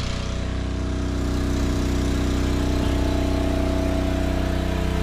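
Small petrol engine driving a water pump, running steadily at a constant speed while it pumps water out to drain a fishing pit.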